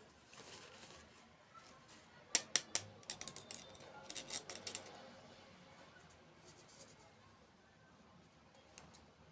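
Three sharp clicks about two seconds in, followed by a quick run of quieter crisp clicks and crackles, then only faint ticks.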